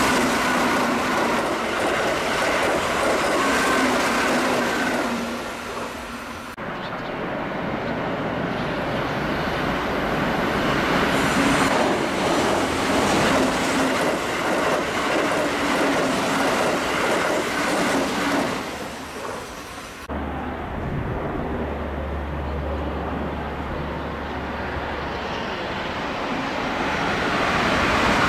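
Keihan electric trains running through a station at speed without stopping: the continuous rush of wheels on rail and passing cars, first from an 8000-series train, then from a 3000-series train. The sound changes abruptly about six and a half seconds in and again about twenty seconds in. After the second change there is a low steady hum for a few seconds, then the noise grows as another 3000-series train approaches near the end.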